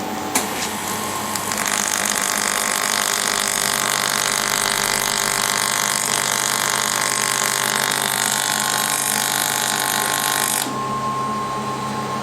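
Fiber laser welding machine running an automatic test weld. There is a click just after the start. About a second and a half in, a loud steady hiss with several steady tones starts, then cuts off abruptly near the end. A low steady machine hum continues underneath.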